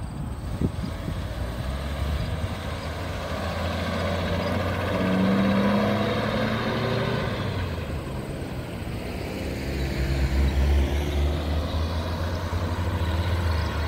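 A 1957 Chevrolet's engine accelerating as the car pulls away and drives past, loudest about halfway through and then fading down the road. Near the end a second car passes close with engine and tyre noise.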